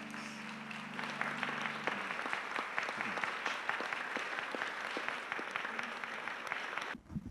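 Small audience applauding, over the last chord of an acoustic guitar song ringing out for the first couple of seconds; the clapping cuts off suddenly near the end.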